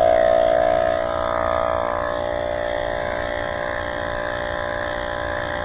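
Small electric air pump running steadily as it inflates an e-bike inner tube: a continuous hum at a level pitch, a little louder in the first second or two.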